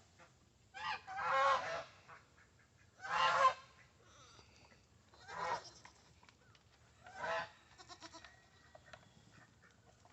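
Farm animals calling: four short calls, one about every two seconds.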